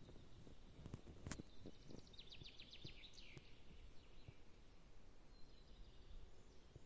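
Quiet woodland ambience in which a small songbird sings one fast trill of about a dozen short high notes, ending in a quick downward flourish, a couple of seconds in. A single sharp click comes about a second in.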